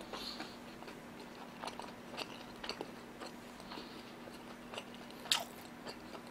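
A person chewing food with the mouth closed, close to the microphone: faint soft wet smacks and small clicks, with one sharper click about five seconds in.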